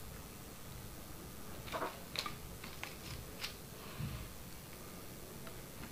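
Faint handling noises off-screen: a few light clicks and rustles, then a soft thump about four seconds in.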